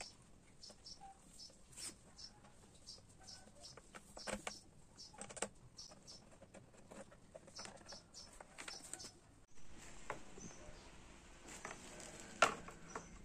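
Light, scattered clicks and taps of hands and a tool working the plastic windscreen mounting of a Honda CB500X. After a cut, a clear plastic windscreen rustles on bubble wrap, with a sharper crackle near the end.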